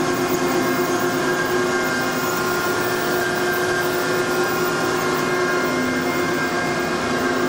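Marvel 15A/S automatic horizontal band saw running through a cut in bar stock: a steady mechanical hum with several fixed whining tones over a continuous hiss, unchanging in level.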